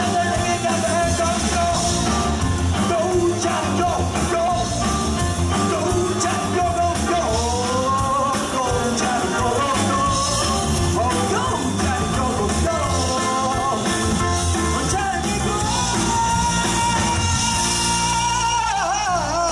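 Live rock band playing a song, with a vocalist singing over drums and bass guitar; near the end a long held note slides down.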